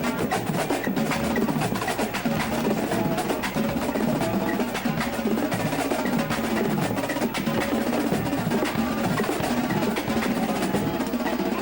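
Indoor percussion ensemble playing, a dense run of rapid drum strokes and rolls.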